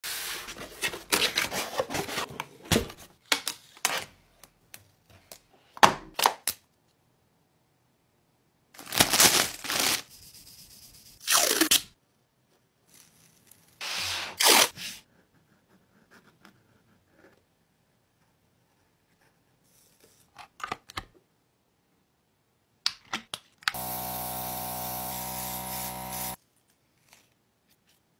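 Close-up crafting sounds of hands working on an earbud case: scattered clicks and taps, and several noisy sweeps about a second long. Near the end a small machine buzzes steadily for about two and a half seconds, then cuts off suddenly.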